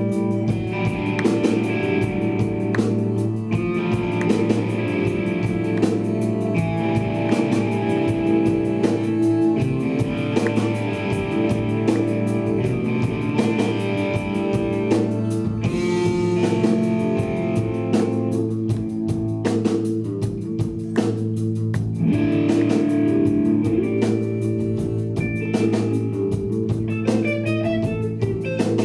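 Blues-rock band playing live: electric guitar over bass guitar and a drum kit, with a saxophone.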